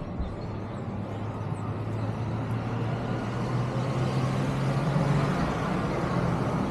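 Road traffic noise with the low, steady hum of a motor vehicle's engine, swelling about four to five seconds in and easing toward the end.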